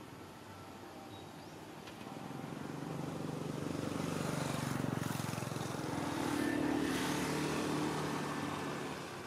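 A motor vehicle driving past: its engine grows louder over a few seconds, peaks in the middle and fades near the end.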